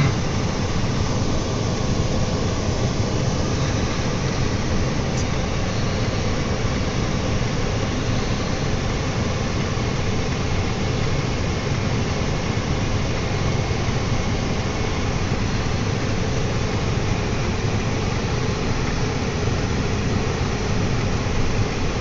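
Steady low rumble of a car driving slowly, engine and road noise heard from inside the cabin.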